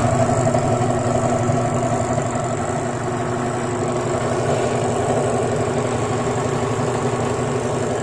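Sharp automatic top-loading washing machine running empty: the motor hums steadily and the tub turns. The machine runs wired straight to a single timer.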